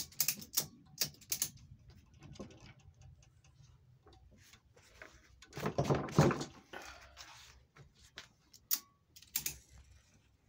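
Scattered light clicks and taps, with a louder rustling knock about six seconds in and a couple more sharp clicks near the end.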